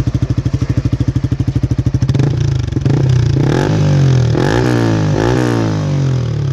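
Yamaha R15 V3's single-cylinder engine through a replica Akrapovic exhaust with the dB killer fitted, idling with even pulses, then revved several times from about two seconds in, the pitch rising and falling with each blip, before settling back to idle near the end.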